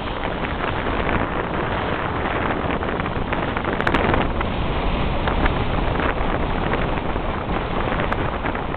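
Wind buffeting the microphone on open water, a steady rushing noise with gusts, the strongest about four seconds in, over the wash of choppy water.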